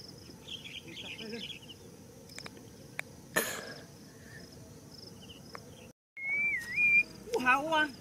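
Insects chirping in short repeated pulses with a few faint bird chirps over quiet field ambience, and a brief rustle about three and a half seconds in. After a sudden break near six seconds, a whistled note and then loud voice-like calls with bending pitch.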